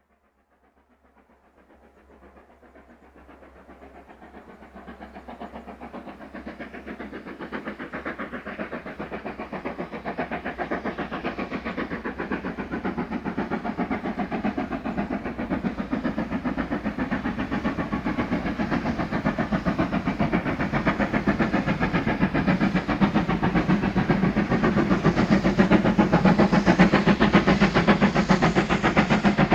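Steam locomotive approaching, its fast, regular beat and running noise growing steadily louder from silence.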